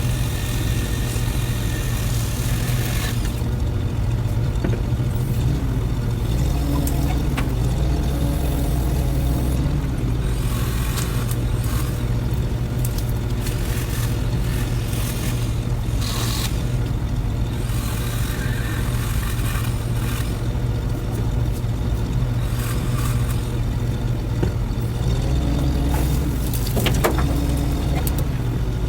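An engine running at a steady low drone, with a few faint clicks and scrapes over it.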